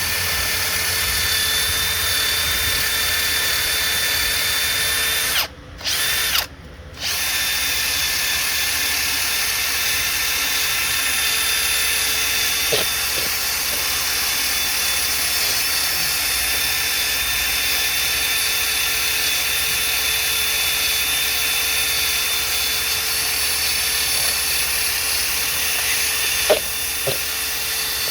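Power drill running steadily with a cleaning attachment, scrubbing gunk off the exhaust port sealing surfaces of a small-block Chevy 305 cylinder head so the new header gaskets seal. It stops briefly twice, about five and a half and six and a half seconds in.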